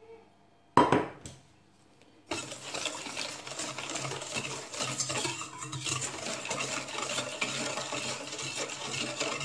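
A single sharp metallic clank with a short ring about a second in, then a wire whisk beating melted butter and sugar in a stainless steel bowl: a steady scraping and tapping of the wires against the metal bowl.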